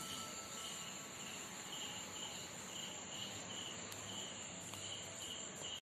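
Insect chirping faintly in short even pulses, about two chirps a second, over a steady high hiss.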